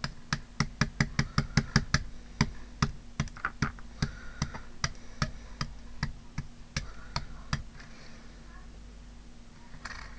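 Rapid sharp taps of a paintbrush dabbing white paint onto a small metal embellishment, about four to five a second, thinning to a few scattered taps after about seven seconds.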